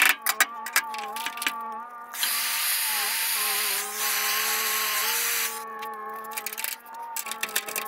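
Metal tool work on a truck's rusty sheet-metal bed floor: quick taps, knocks and scraping. It gives way to a steady rushing hiss for about three seconds in the middle, then the knocking resumes. Steady tones carry on underneath throughout.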